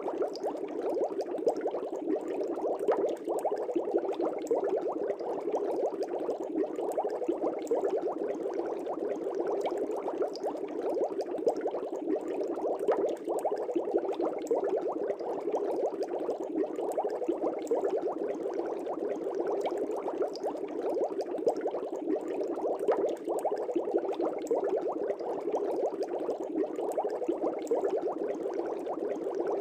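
Aquarium water bubbling steadily: a dense, continuous stream of air bubbles in a fish tank.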